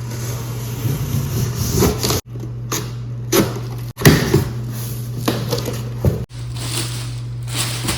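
Rustling and knocking handling sounds over a steady low hum, broken by abrupt cuts about every two seconds.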